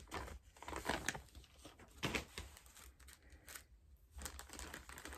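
Printed mailer packaging crinkling and rustling as hands rummage inside it, in short, irregular crackles and small clicks.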